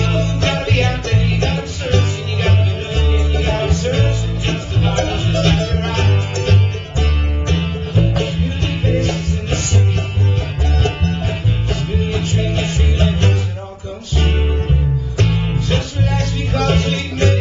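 Live bluegrass string band playing: mandolin and acoustic guitar over plucked upright bass, with a brief drop in loudness about fourteen seconds in.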